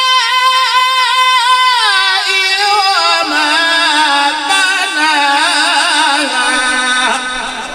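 Male Quran reciter in the melodic mujawwad style, holding one long unbroken drawn-out note into a microphone. The held note starts high, then descends in steps to a lower pitch, with quavering ornaments along the way.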